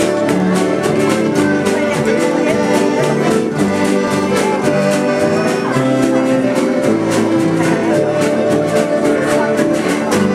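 Live acoustic band playing a tune: accordion, fiddle, upright bass, acoustic guitar and drum kit together, with a steady beat.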